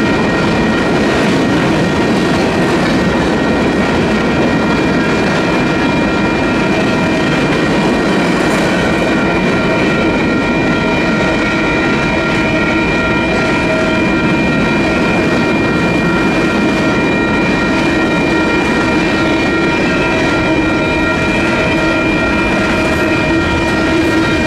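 Freight cars of a Union Pacific manifest train rolling through a grade crossing, their wheels clattering over the rail joints in a steady rumble. Under it the crossing's WCH electronic bell rings continuously.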